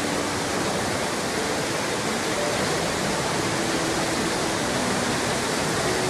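Steady, even rush of Nachi Falls, a 133 m straight-drop waterfall, its water plunging down the cliff into the plunge pool.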